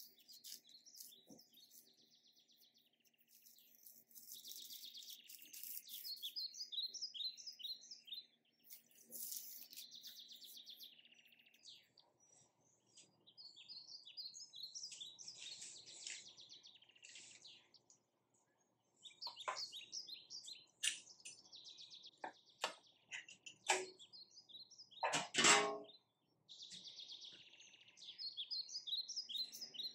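Small birds chirping and singing in repeated short phrases, with a string of sharp clicks and knocks in the last third, the loudest a few seconds before the end.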